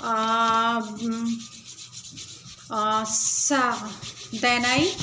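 A woman's drawn-out hesitation sounds, one long steady "uhh" and then two shorter ones, made while she searches for her next word. Faint scratchy rubbing noise underneath.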